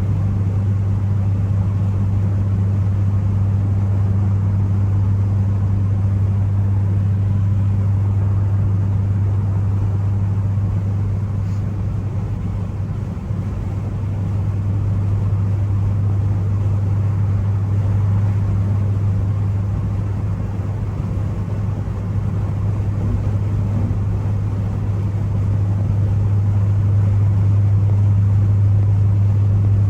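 Ford Focus ST's turbocharged four-cylinder engine running at a steady cruise, a constant low drone that eases off slightly a couple of times.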